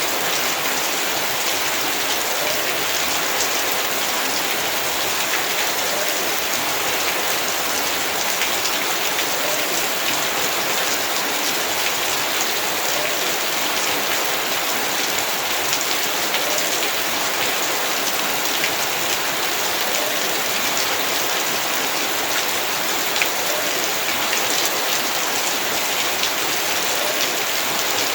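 Heavy rain falling steadily, a dense hiss of drops hitting surfaces with many small individual splats in it.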